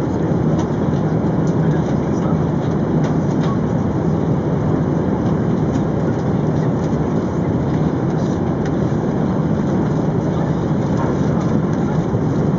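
Steady in-flight cabin noise of an Airbus A380 during its descent: an even rumble of airflow and engines heard from inside the passenger cabin, with a few faint ticks.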